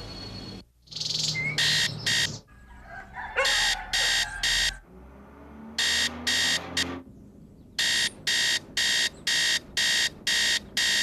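Digital alarm clock beeping. The beeps come first in short groups (two, then threes), then as a steady run of evenly spaced beeps, a little over two a second.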